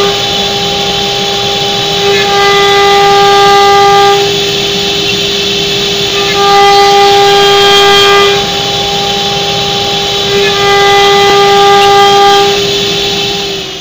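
High-speed router spindle on a CNC wood lathe whining at a steady pitch as it carves flutes into a turning wooden column. A louder, higher tone comes in and drops out every couple of seconds.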